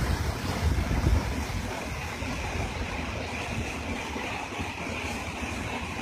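Tall waterfall pouring into a pool, a steady rush of falling water. Wind buffets the microphone for about the first second and a half.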